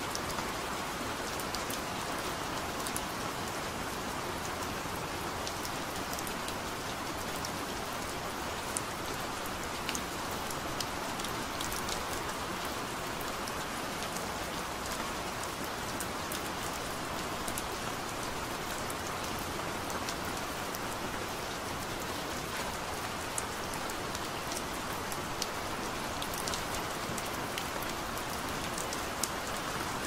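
Steady gentle rain: an even hiss with scattered sharp drop ticks.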